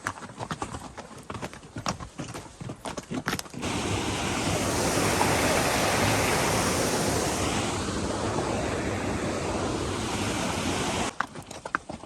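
Mule's hooves clopping on a rocky trail, then a loud, steady rushing noise that cuts in abruptly a few seconds in and stops just as abruptly about seven seconds later, before the hoofbeats return.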